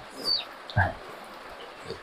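A bird gives one short falling chirp near the start, and about a second in there is a short smacking mouth sound of someone eating with their fingers.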